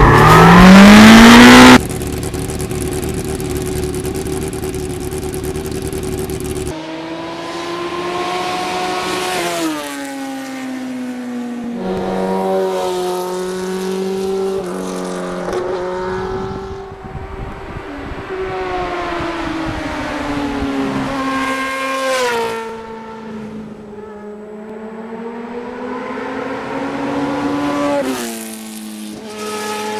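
A loud rising whoosh, then a motorcycle engine revving up and dropping back several times as the bike rides along the road toward the camera, the pitch climbing and falling with each change.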